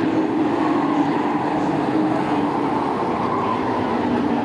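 A field of race trucks running on a short-track oval: a steady, blended engine drone from several trucks at once, wavering slightly in pitch as they circulate.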